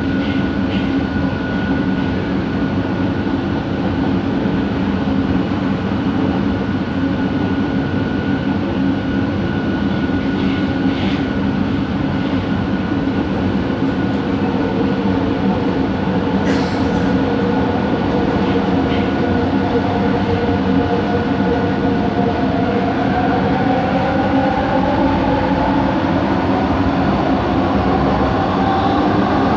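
Bombardier Innovia ART 200 metro train running, its linear induction motors giving a steady rumble under a steady whine. A second whine rises in pitch over the last several seconds.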